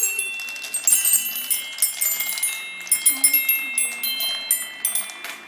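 Marbles clicking and rattling through a wooden Quadrilla marble run, striking its sound blocks. The blocks ring out in overlapping chime-like tones.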